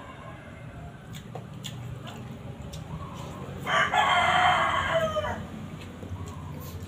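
A rooster crowing once, a single call of about a second and a half that starts nearly four seconds in and ends on a falling note. It is the loudest sound here, well above the background.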